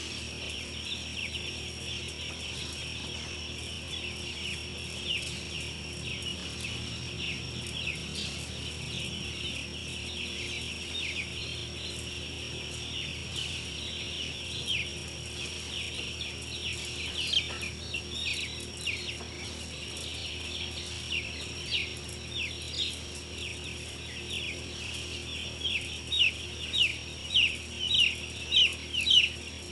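A flock of young broiler chicks peeping continuously, many short falling cheeps overlapping, with a run of louder single cheeps near the end. A steady machine hum runs underneath.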